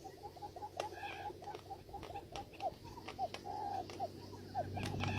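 Quail calling: a rapid series of short, hooked chirps, about three or four a second, with a few sharp clicks among them. A low hum grows louder near the end.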